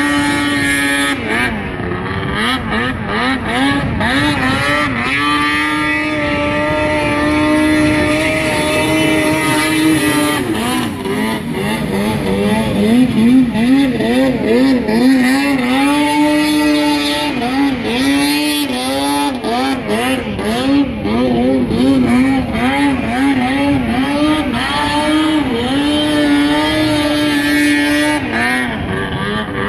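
Racing snowmobiles, a Polaris IQ 800 two-stroke among them, running flat out across open water. Their engine note holds a steady high pitch, then swings rapidly up and down in several stretches as the throttle is worked.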